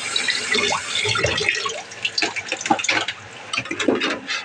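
Kitchen sink tap running, stopping about a second and a half in, followed by a series of light clinks and knocks of things being handled.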